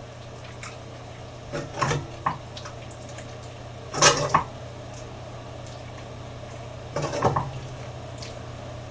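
Ladle clattering and scraping against a wok and a bowl as pieces of braised catfish are scooped out of the sauce, in three short bursts with the loudest about four seconds in. A steady low hum runs underneath.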